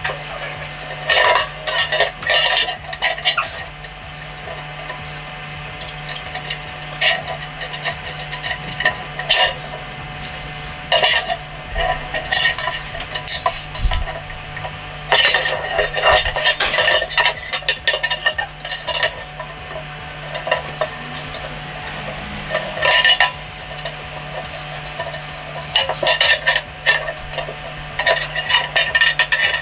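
Thin metal legs and fittings of a cheap kettle barbecue clinking and rattling in irregular bursts as they are handled and fitted together during assembly.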